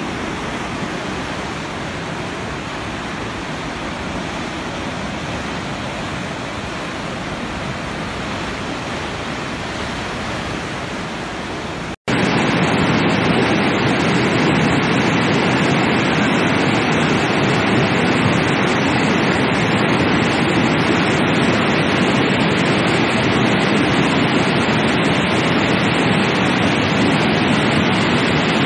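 Steady rushing noise of a muddy, flood-swollen river. After a cut about twelve seconds in it is louder and deeper: a flood of mud and debris pouring across fields.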